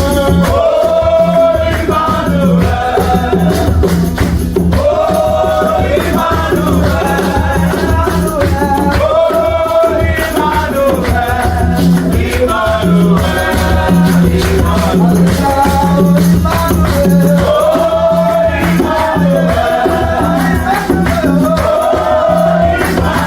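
Gospel worship music: voices sing over a steady pulsing bass, with shaken hand percussion.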